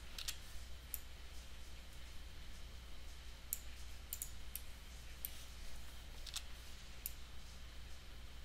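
Computer mouse buttons clicking, about eight sharp clicks at irregular intervals while mesh edges are being selected, over a steady low hum.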